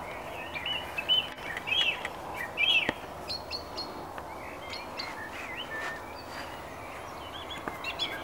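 Two songbirds singing against each other: short chirps and warbled phrases, densest in the first three seconds and scattered through the rest, over a steady background hiss.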